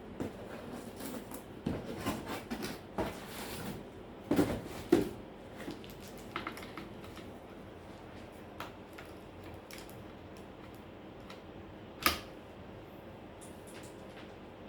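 Scattered clicks, taps and light knocks of objects being handled, bunched in the first five seconds, then a single sharper click about twelve seconds in.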